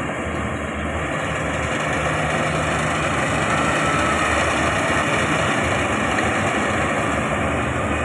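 Yanmar AG600A combine harvester running steadily while it cuts and threshes rice: a steady low engine hum under a dense, even mechanical noise.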